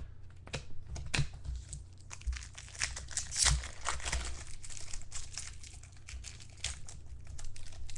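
A trading-card pack wrapper being torn and peeled open by hand, crinkling in a dense string of irregular crackles and rips.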